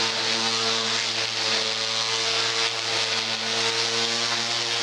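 Electric power sander running steadily at constant speed, giving plywood panels a light sanding.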